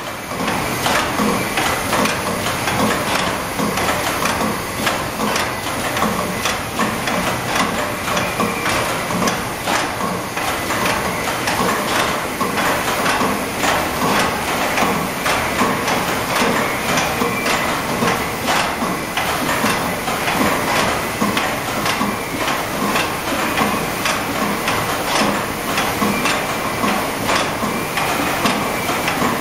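Industrial rotating-plate pancake machine running: a steady mechanical clatter of many rapid, irregular clicks and knocks.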